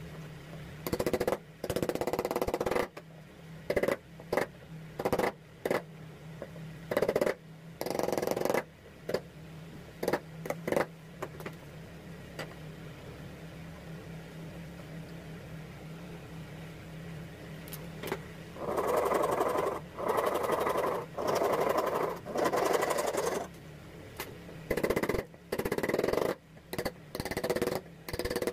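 Hand chisel cutting into a hardwood handle blank held in a bench vise: bursts of scraping cuts and sharp knocks, broken by a pause of several seconds in the middle, then four longer, even strokes.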